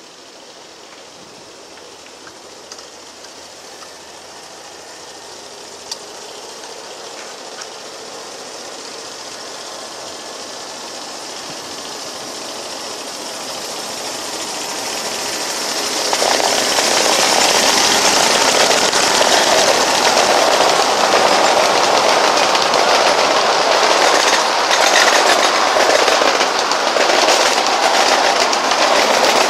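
Riding-scale EMD F7 model diesel locomotive, driven by a Briggs & Stratton V-twin engine, pulling a scale freight train up a grade. The sound grows steadily louder as the train approaches and becomes loud about halfway through as it draws close. Near the end the freight cars roll past with the wheels clicking over the rail joints.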